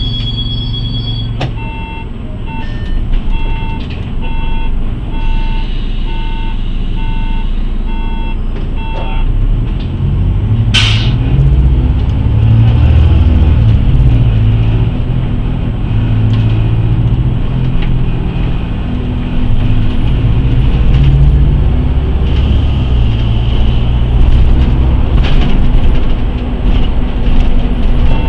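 City bus interior: a warning beep repeats about once a second for several seconds, then a sharp hiss of compressed air. After that the bus's diesel engine pulls loudly as the bus moves off and accelerates along the street.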